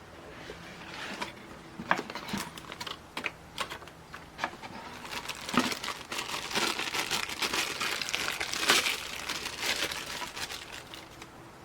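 Crinkly plastic being handled, with irregular sharp clicks and crackles, busiest in the second half.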